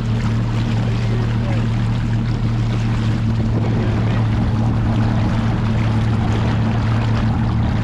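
Boat motor running steadily at low speed, a constant low hum with hiss from water and wind over it.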